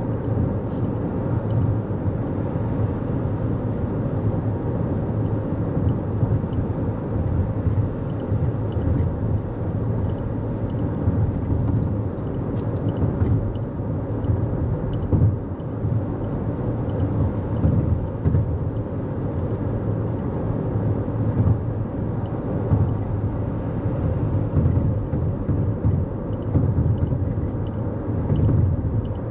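Steady road rumble of a 2024 Toyota Corolla Cross cruising at highway speed: tyre and engine noise that holds constant throughout.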